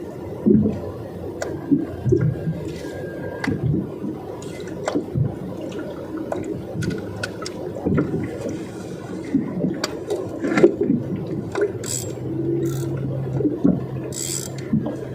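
Water sloshing and slapping against the hull of a small fishing boat, with scattered knocks. A low steady hum comes in near the end.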